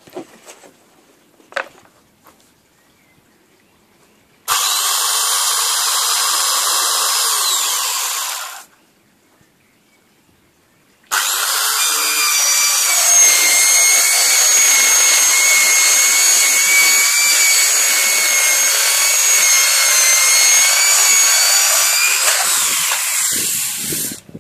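Evolution Fury Twin 125mm TCT circular saw cutting polycarbonate sheet: a steady high whine that starts about four seconds in and winds down after a few seconds, then a second, longer run of about thirteen seconds that winds down near the end.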